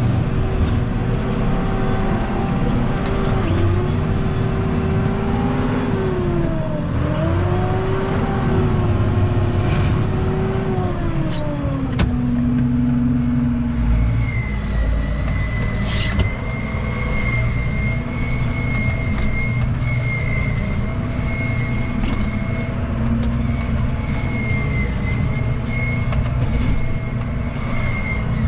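Tractor engine running under load while a bale processor shreds and blows out straw bedding. The engine pitch sags twice, then drops about twelve seconds in. Soon after, a steady high whine sets in and holds.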